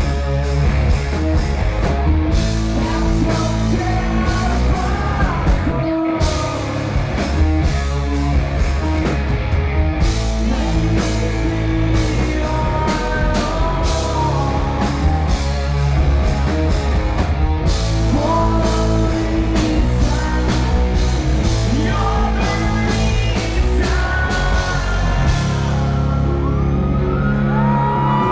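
Rock band playing live, heard from the audience: a singer over distorted guitars, bass and drums with crashing cymbals. Near the end the drums drop out and held notes ring on.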